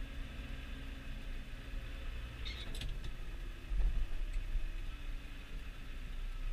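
Massey Ferguson 6480 tractor's six-cylinder diesel engine running steadily, heard from inside the cab. A short clatter comes about two and a half seconds in, and a low bump about a second later.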